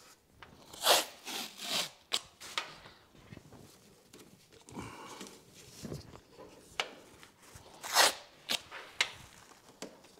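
Wide masking tape being pulled off the roll in short rips, loudest about a second in and again near the end, with the plastic masking sheet rustling and crackling in between.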